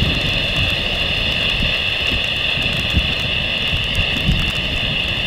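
Jet airliner climbing away after takeoff: a low engine rumble, buffeted by gusts of wind on the microphone, over a steady high-pitched drone.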